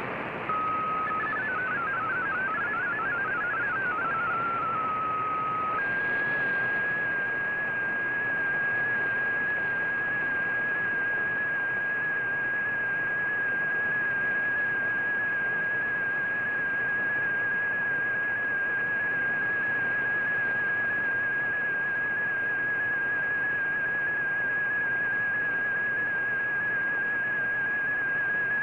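Shortwave receiver audio of the VOA Radiogram digital-mode broadcast, with steady band-limited static hiss. For the first few seconds short warbling data tones hop between two pitches. Then a single steady whistle-like tone holds unchanged.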